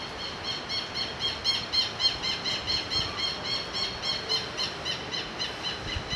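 A bird calling in a rapid run of short, squeaky chirps, about four a second, lasting about five seconds, over a steady hiss of rain.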